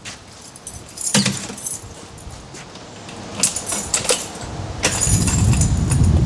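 A bunch of keys jangling, with sharp metallic clicks as a door lock is worked about one, three and a half, four and five seconds in. From about five seconds in, a low rumble builds beneath it.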